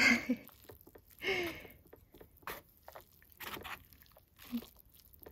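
Eating instant cup ramen: short bursts of slurping and chewing noodles, with a brief bit of voice at the start.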